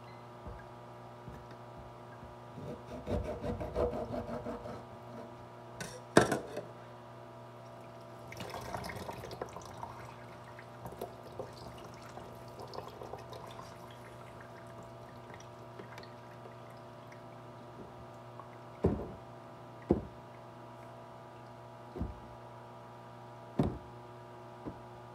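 Orange juice being strained by hand through a plastic mesh sieve: liquid splashing and pouring into the container below in two spells, with a sharp knock about six seconds in and several short knocks near the end, over a steady hum.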